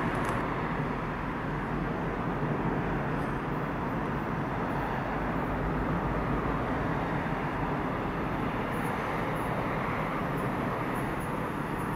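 Steady low rumble of a distant Class 60 diesel-electric locomotive approaching along the line, not yet close enough to grow louder.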